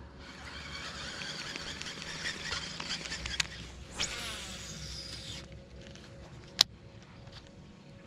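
Baitcasting reel winding in line with a buzzing whir, then a cast about four seconds in with the spool spinning as line pays out until about five and a half seconds in. A single sharp click follows a second later.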